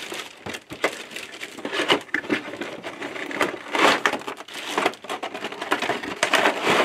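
Clear plastic wrapping crinkling and rustling as it is pulled off and around a cardboard box, with the box itself scraping and handled, in an irregular run of crackles.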